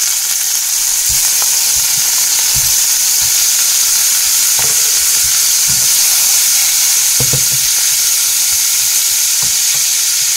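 Prawns frying in hot oil in a kadai: a loud, steady sizzle, with a few light knocks against the pan.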